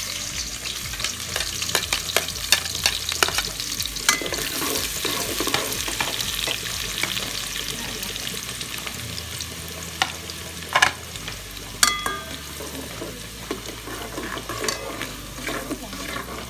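Chopped garlic and onion sizzling in hot oil in an aluminium pot while a metal spatula stirs and scrapes the pot, with many light scrapes and a few sharp metal clinks, one of them ringing briefly.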